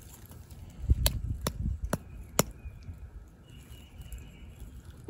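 Four sharp taps, about two a second, over low rustling handling noise.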